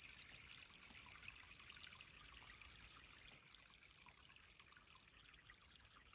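A small brook babbling, a faint, steady trickling of water that eases slightly in the second half.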